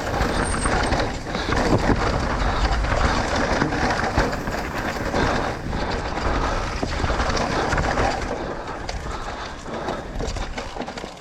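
Steady wind rumble and rushing trail noise on a camera riding along on a mountain bike, with scattered small rattles and crackles.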